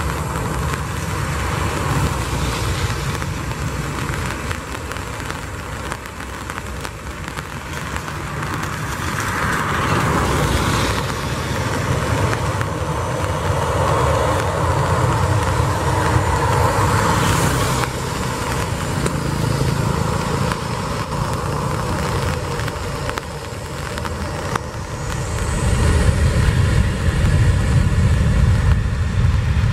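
Boeing 737 jet engines running as the airliner taxis and lines up on a wet runway. About 25 seconds in they spool up with a faint rising whine and grow louder as the takeoff roll begins.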